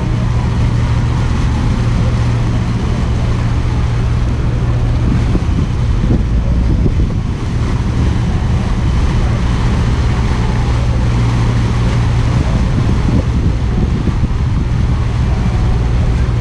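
Ferryboat's engine running with a steady low drone, with wind and water noise over it.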